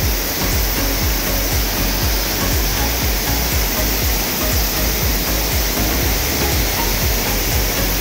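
Steady rush of a fast-flowing river, with repeated low thuds underneath.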